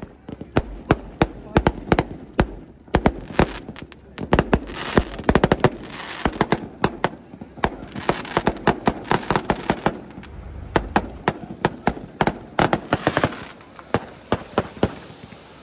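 Fireworks going off overhead: a rapid, irregular string of sharp bangs and crackles, thickest in bursts about a third of the way in, near the middle and toward the end.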